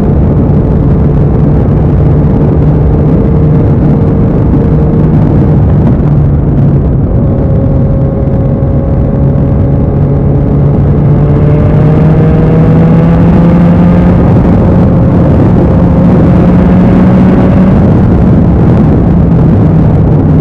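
Kawasaki Z900's inline-four engine running through an IXIL aftermarket exhaust while riding, a steady engine note that climbs slowly in pitch about halfway through and then holds.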